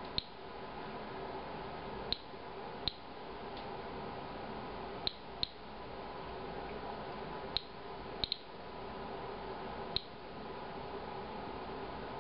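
Inspector Alert Geiger counter chirping once per detected count, about nine irregularly spaced short clicks with a high beep, over a steady faint room hum. The slow, random rate is a count close to background radiation, which the tester takes as a sign that this beer may not be reading above background.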